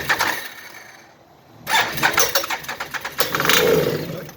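Can-Am Outlander 800 ATV's V-twin engine being started in two short bursts, each a rapid ragged run of firing strokes lasting a couple of seconds, with a quieter gap of about a second between them.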